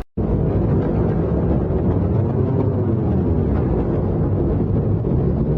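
A steady, low rumbling drone starts just after a sudden cut and holds at an even level.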